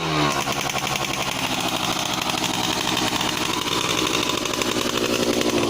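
Two-stroke underbone motorcycle engine running steadily at idle, with a rapid, even exhaust beat.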